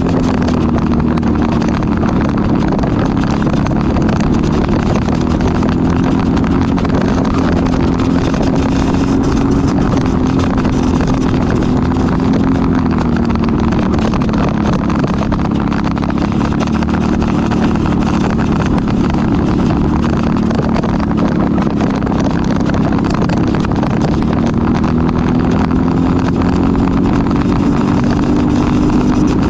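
Briggs & Stratton LO206 four-stroke single-cylinder kart engine running at race pace, heard onboard. The engine note dips slightly through a corner partway in and climbs again as the kart accelerates near the end.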